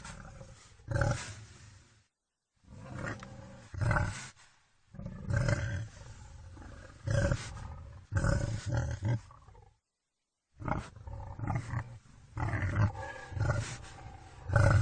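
Wild boar grunting and growling in a string of short, loud, low calls, breaking off twice into dead silence.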